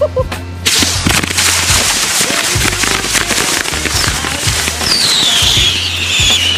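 A tub packed with hundreds of bottle rockets going off together: a sudden, dense crackle of rockets firing and popping starts about a second in and keeps on. From about five seconds a whistle rocket's falling whistle rises above it.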